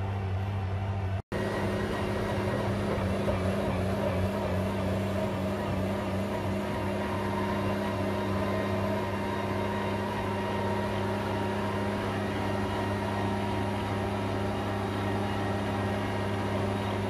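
Cat RM300 rotary mixer's diesel engine running steadily as the machine mixes lime slurry into the soil subgrade. The sound drops out for an instant about a second in.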